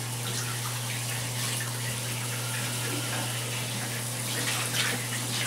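Handheld shower head spraying water into a plastic basin of bathwater: a steady rush of running water with a few small splashes, over a constant low hum.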